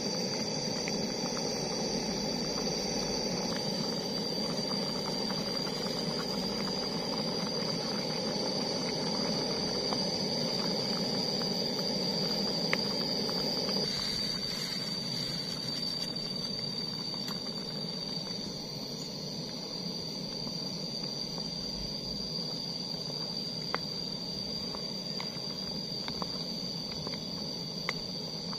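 Portable gas camping stove burner hissing steadily under a simmering pot of soup, with a few light clicks from a wooden spatula on the aluminium pot. The hiss drops a little about halfway through.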